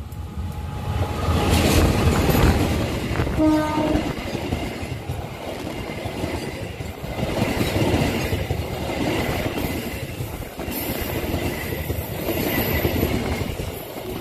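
A KAI diesel locomotive and its passenger coaches pass at close range. The rumble of the locomotive is loudest in the first few seconds, a brief horn toot sounds about three and a half seconds in, and then the coaches roll by with wheel clatter that swells and fades as the bogies pass.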